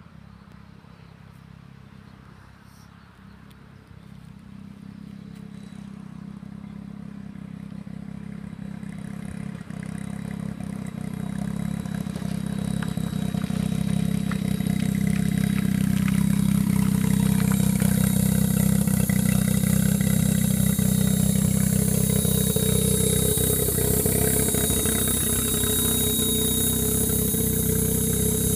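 Car engine approaching at low speed, growing steadily louder over about a dozen seconds, then running close by at a steady idle, with a thin high whine coming in near the end.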